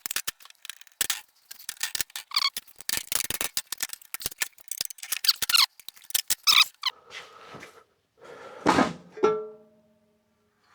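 A pry tool working at an electric-vehicle inverter's cover, with rapid clicking and scraping. Near the end there is a heavy clunk as the cover comes free, and the metal rings briefly.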